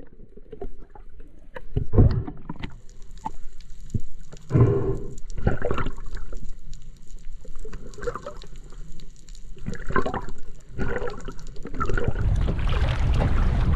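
Water heard through a camera held underwater: irregular muffled knocks and bubbling, changing about twelve seconds in to continuous sloshing and splashing of a swimmer at the surface.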